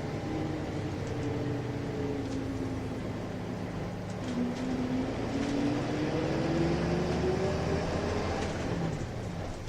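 Nissan Diesel Space Runner RM city bus heard from inside while driving: steady diesel engine drone under a whining tone that sinks in pitch, climbs steadily from about four seconds in as the bus picks up speed, and drops again near the end.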